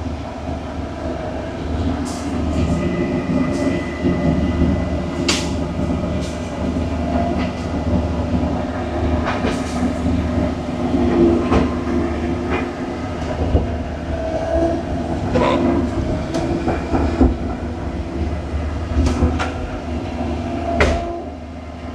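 Tracked excavator's diesel engine running steadily, with scattered clanks and knocks from the tracks and steel parts as the machine moves.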